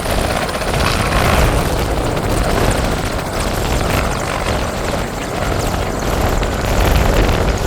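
Helicopter running close by: loud, steady rotor and engine noise.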